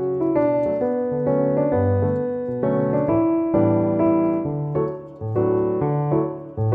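Background piano music, several notes sounding together and changing about every half second.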